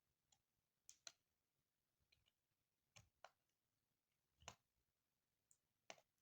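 Near silence, with about eight or nine faint, irregular small clicks or ticks. The strongest come about four and a half and six seconds in.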